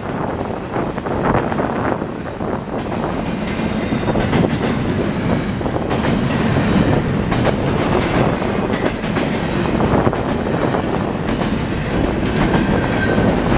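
Double-stack intermodal container train's well cars rolling past: a steady rumble of steel wheels on rail with repeated clicks over the rail joints.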